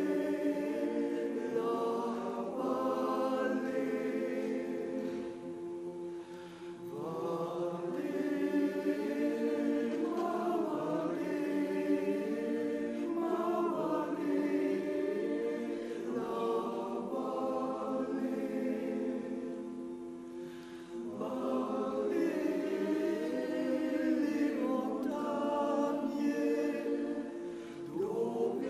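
Men's choir singing in multi-part harmony, holding sustained chords in long phrases, with brief breaths between phrases about six seconds in and again around twenty seconds in.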